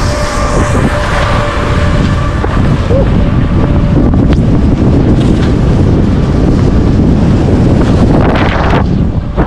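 Loud wind rushing over the camera microphone of a skier heading downhill, with the hiss and scrape of skis on packed snow underneath.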